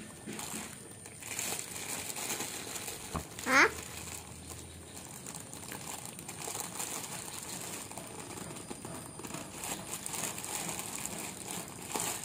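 Clear plastic bag of kerupuk crackers crinkling as a small child's hands rummage in it. A brief rising squeal about three and a half seconds in is the loudest sound.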